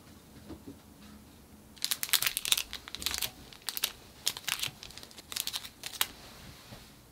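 Clear plastic sleeves holding small photo prints crinkling in a run of short, crackly bursts as they are handled, starting about two seconds in and stopping near the end.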